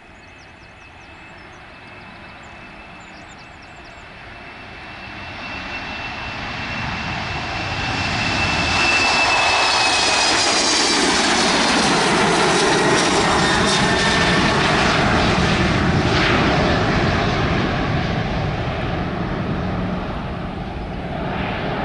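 Embraer E190-series airliner's twin GE CF34-10E turbofans at takeoff power, growing steadily louder as it rolls toward and past. A high fan whine drops in pitch around ten seconds in as the jet passes. The engine noise stays at its loudest for several seconds, then eases slightly as it climbs away.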